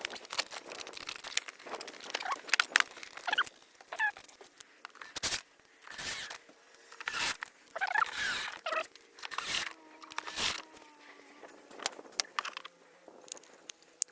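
Plastic parts of a Kärcher K4 pressure washer being handled and fitted back together during reassembly: a run of irregular clicks and knocks with a few short squeaks.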